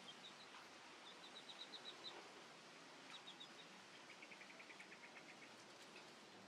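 Faint bird chirps over quiet background hiss: a quick series of high chirps about a second in, a few more around three seconds, then a faster, slightly lower trill of about a dozen notes from about four seconds.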